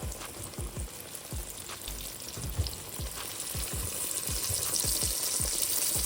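Flour-breaded chicken-fried chicken cutlet frying in hot oil: a steady sizzling hiss that grows louder about four seconds in. A low thumping beat, a couple of thumps a second, runs underneath.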